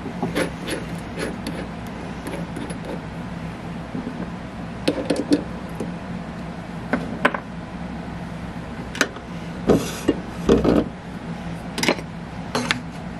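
Scattered clicks and knocks of metal tools and workpiece being handled while a drill press is set up, over a steady low hum. The loudest knocks come in a cluster about ten seconds in.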